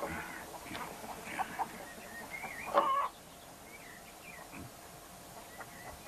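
Chickens clucking in short, wavering calls, with one louder call about three seconds in.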